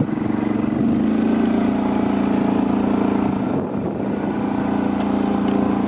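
Motorboat engine running steadily, a low even drone that dips briefly about three and a half seconds in.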